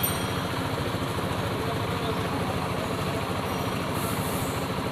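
Honda CBR150's single-cylinder four-stroke engine idling steadily, run so the freshly added coolant circulates through the cooling system.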